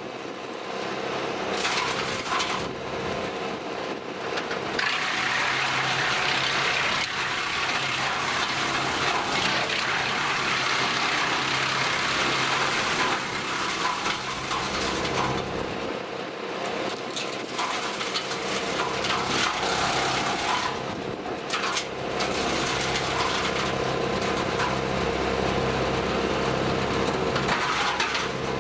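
Jansen BX-62RS tractor-mounted wood chipper running off a tractor, chipping branches: a steady engine hum under long crackling, crunching surges each time branches are fed in, three main surges lasting several seconds each.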